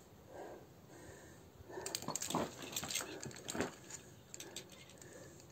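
Metal climbing gear clinking: carabiners and quickdraws jangling in a quick run of sharp clicks from about two seconds in, lasting about two seconds, with a few duller knocks among them.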